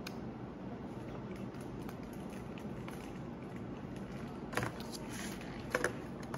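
Steady room hum, with a light knock about four and a half seconds in and a quick double knock near the end as a cardboard nuggets box and a paper cup are moved on a tabletop.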